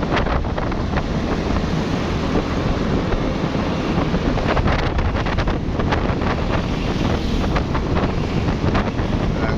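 Wind buffeting the microphone over steady road-traffic and engine noise.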